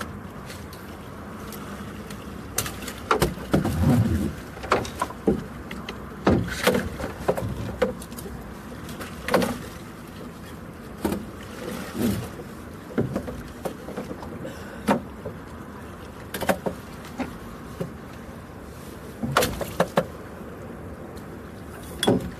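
Irregular knocks, clunks and short splashes in a small boat over a steady rush of water and wind, as a hooked blue catfish is played in strong current.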